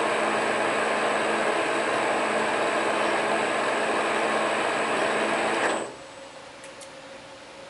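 Metal lathe running with a steady machining noise, then cutting off abruptly about six seconds in, leaving a faint hum.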